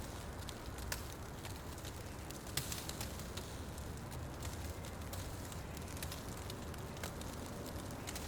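Wood fire burning in a fireplace: a steady low rumble of flame with frequent sharp crackles and pops, a louder pop at about a second in and again near three seconds.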